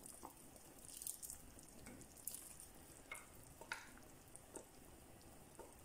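Faint simmering of a pot of soup, with a few soft, scattered plops and taps as chopped boiled eggs slide off a plate into it.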